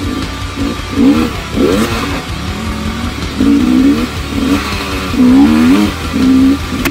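Dirt bike engine close up, revving up and down again and again as the throttle is opened and shut on a rough trail.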